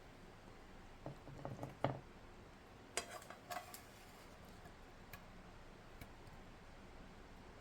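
Light kitchen clatter of utensils against dishes: a quick run of soft knocks about a second in, then two sharp clinks with a short ring around three seconds in, and a few faint ticks after.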